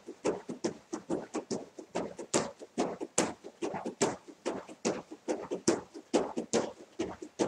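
Bare feet bouncing on a wooden floor in quick, even steps of about four a second.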